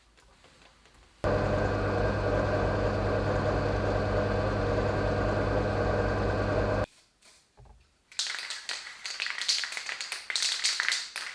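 An electric motor runs at a steady speed with a low hum and a stack of even tones, starting and cutting off abruptly. After a short pause comes irregular scratchy rubbing and clicking.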